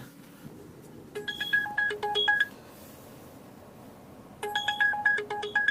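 A short electronic melody of pure beeping tones, played twice about three seconds apart, in the manner of a ringtone or notification jingle.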